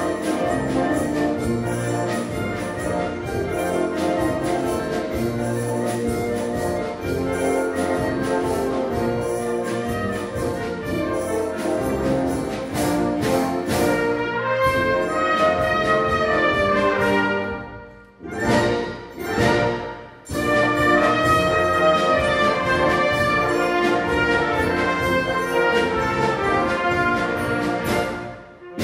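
Portuguese wind band (banda filarmónica) playing a live arrangement of folk and student-song tunes, with brass carrying the melody. About two-thirds of the way through, the music thins out into two short separate chords before the full band comes back in.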